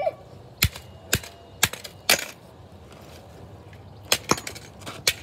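Claw hammer striking a camera on pavement: four sharp blows about half a second apart, a pause, then a quicker run of blows near the end.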